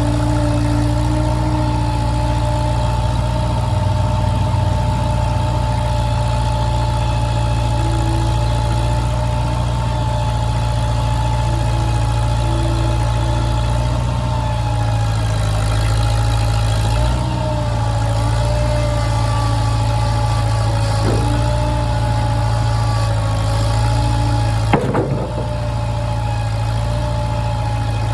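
An engine running steadily at an even speed, with a steady whine above it and a single sharp clank about 25 seconds in.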